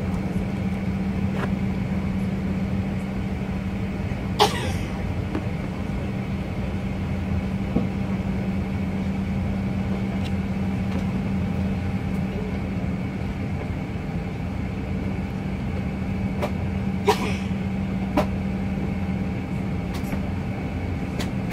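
Steady cabin hum with a low, even drone inside a Boeing 737-900ER during pushback from the gate, broken by a few sharp clicks, the loudest about four and seventeen seconds in.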